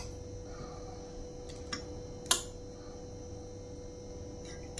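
A few light clicks and taps as skewered bread is handled and set down in a stainless steel tray, the loudest about two seconds in, over a faint steady hum.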